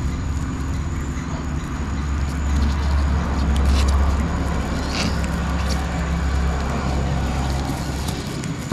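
Low engine rumble of a motor vehicle running nearby, swelling to its loudest in the middle and falling away near the end.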